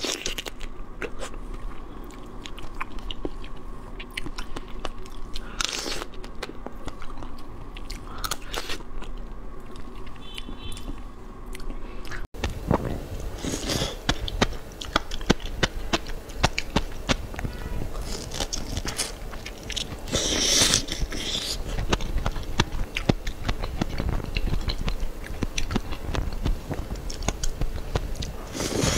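Close-miked mouth sounds of eating, with dense wet clicks of biting and chewing. First comes seafood dripping with chili oil; after a cut about twelve seconds in come whole marinated shrimp, and the eating sounds get louder.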